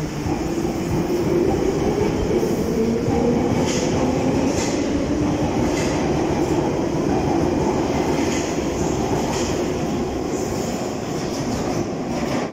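London Underground Piccadilly line 1973 Stock train pulling out of the platform into the tunnel. Its motors whine with a slowly rising pitch over a steady rumble, and the wheels clack over rail joints about once a second as it gathers speed.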